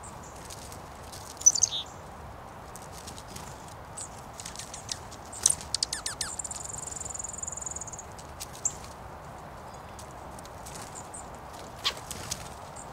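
Small songbirds feeding on icy ground: a short falling chirp about a second in, a high thin note held for over a second midway, and scattered sharp taps of beaks and feet on the ice, over a steady faint hiss.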